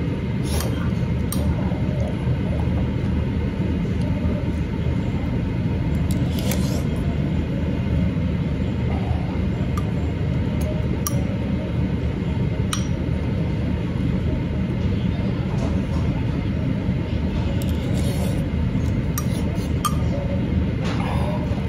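A metal spoon clinking against a ceramic bowl now and then while stirring and scooping rice soup, over a steady low rumble.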